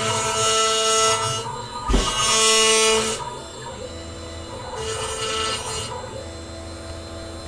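6040Z-USB desktop CNC router engraving wood. The spindle runs steadily at 12,000 RPM while the stepper motors hum in tones that change as the axes move, with three stretches of louder hissing cutting noise as the bit routes the board. There is one sharp thump about two seconds in.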